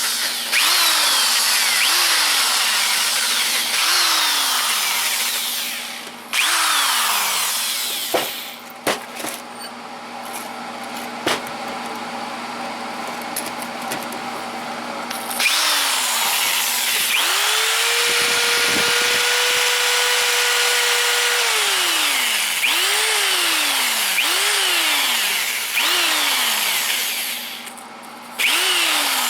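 Power drill with a wire brush scrubbing rust off a rusted machinist vise in short bursts. Each time the trigger is let go, the motor's pitch falls as it spins down. There is a quieter lull with a few clicks, then a run of several seconds at steady speed before it winds down, followed by more short bursts.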